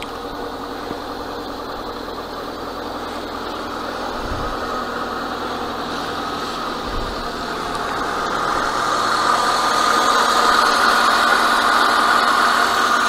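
Lada Niva's engine idling steadily, its hum growing gradually louder over the first ten seconds and then holding.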